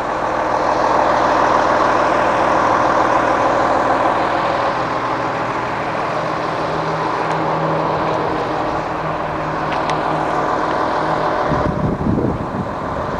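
Cummins ISC six-cylinder diesel engine of a Blue Bird school-type bus idling steadily. Wind buffets the microphone near the end.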